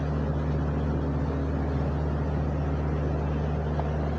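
Steady low hum of vehicle engines in street traffic.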